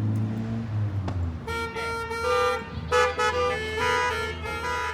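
Several car horns honking, overlapping short and long toots of different pitches, starting about a second and a half in.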